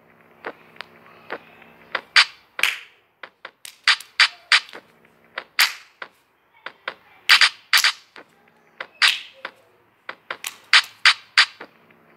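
A run of sharp, irregular clicks and slaps, some loud and some faint, a few a second at their busiest, over faint steady low tones.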